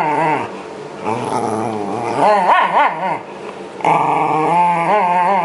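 Shiba Inu growling and snarling at the hand brushing it, in several bouts with short breaks: a growl that wavers up and down in pitch, with a lower, flatter stretch partway through.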